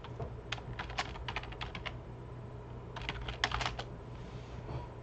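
Computer keyboard keys being typed in two quick runs of clicks, one about half a second in and another about three seconds in, entering a password.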